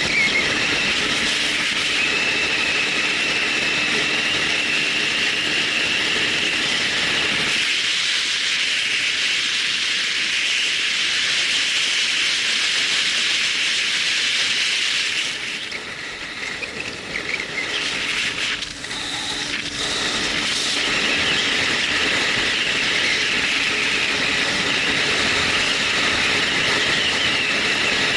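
Loud, steady rushing hiss, strongest in the upper range, through a Sony HDR-AZ1 action camera's built-in microphone. It drops quieter for a few seconds just past the middle. The owner finds this microphone noise terrible and wonders whether it is a factory defect or how the model simply records.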